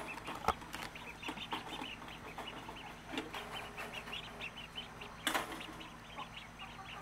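Ducklings peeping, many short high calls repeated over and over, with a couple of brief knocks or rattles, the louder one about five seconds in.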